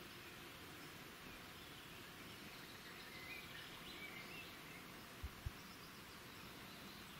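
Faint outdoor ambience: a steady hiss, with a few faint distant bird chirps in the middle and two soft low thumps in quick succession a little after five seconds.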